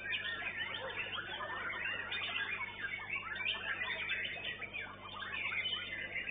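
White-rumped shamas (murai batu) singing, a dense overlapping stream of fast, varied chirps and whistles from several birds at once.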